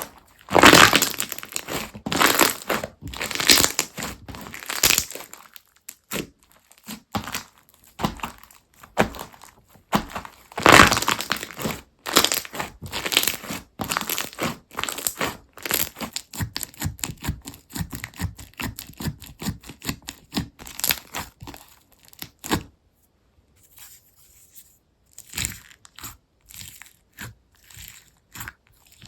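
Crunchy foam-bead slime being squeezed and pressed by hand, giving dense crackling and crunching pops. The loudest squeezes come about a second in and again around ten seconds in, and it thins out to sparse, quieter pops near the end.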